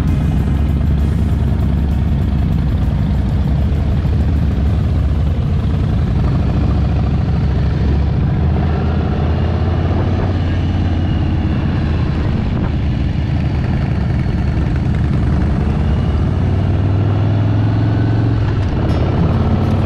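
Harley-Davidson V-twin motorcycle engine running steadily while riding along a highway, with wind and road noise, heard from a camera mounted on the bike. The low engine note grows stronger in the last few seconds.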